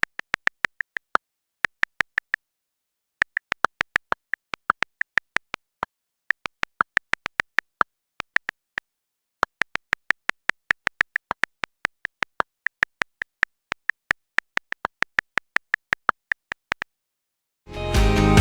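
Keyboard typing clicks, about six a second, in four bursts with short pauses between them. Music starts near the end.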